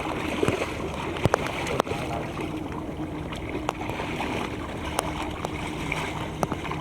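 Shallow muddy water sloshing and splashing as hands grope through it for fish, with many small sharp clicks and a faint steady hum underneath.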